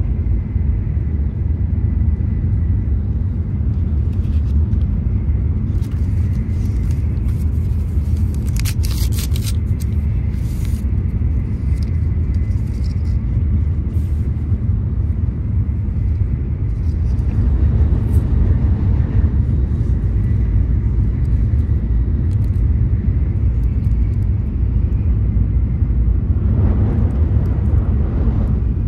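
Steady low rumble of a Shinkansen bullet train's passenger cabin at speed. Crackles of plastic packaging are handled about a third of the way through, and a plastic sauce packet is torn open near the end.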